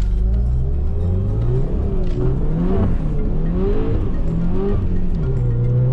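Car engine revving up and down over and over, its pitch climbing and dropping every second or so, then holding a slow steady rise near the end.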